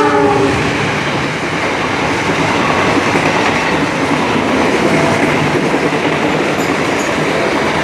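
Passenger coaches of an express train passing close by at speed: a loud, steady rush of wheel and rail noise.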